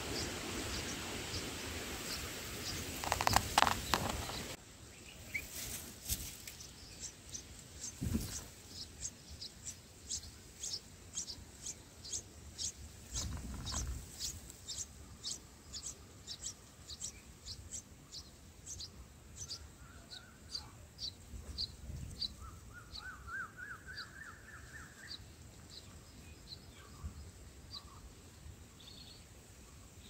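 Bulbul nestlings begging: a long series of thin, high chirps, about two a second, slowly fading out. About two-thirds of the way through there is a quick run of lower notes. The first four seconds are under a steady hiss with a loud burst in it, and the hiss stops suddenly.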